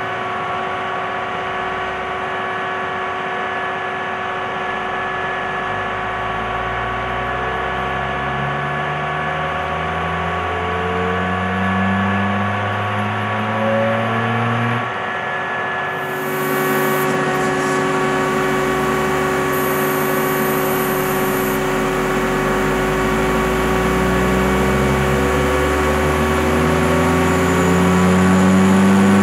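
Seismic vibrator truck running a sweep: a low hum from the vibrating baseplate rises slowly in pitch for about 13 seconds, breaks off, and starts a second slow rise about 16 seconds in, over the truck's steady engine and hydraulic whine.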